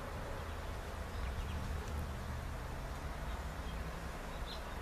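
Steady outdoor background with a low hum, with a few faint, short high chirps here and there.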